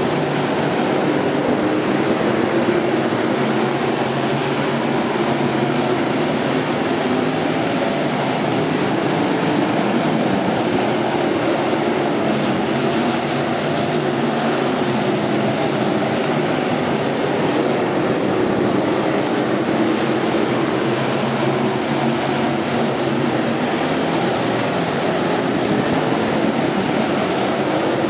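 A pack of dirt-track stock cars racing, their engines running hard together in a loud, steady drone.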